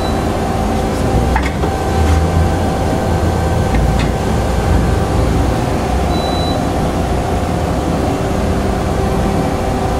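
CNC lathe running with a steady mechanical hum and a few steady whining tones over a low rumble, with a couple of faint clicks about a second and a half and four seconds in.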